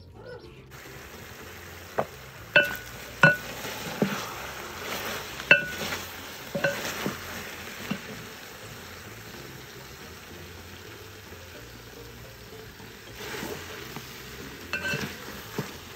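Wooden spoon stirring chicken stew in a metal pot over a steady sizzle. The spoon knocks against the pot several times with sharp, ringing clinks, most of them in the first half and a few more near the end.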